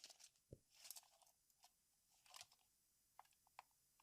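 Near silence with a few faint, scattered clicks and light rustles.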